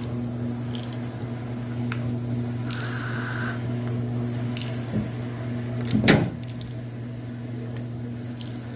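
Roper direct-drive top-load washing machine running through its spin-and-drain, a steady motor hum with a brief whine about three seconds in and a loud knock about six seconds in, just before the machine moves on to the rinse cycle.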